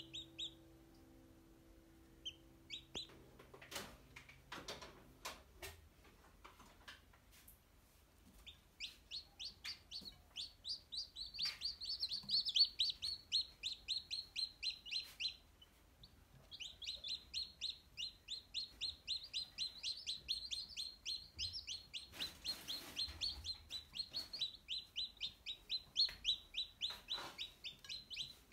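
Newly hatched chicks peeping: rapid high-pitched cheeps, about four a second, in two long runs from about nine seconds in and again from about sixteen seconds, with only scattered peeps and faint taps before.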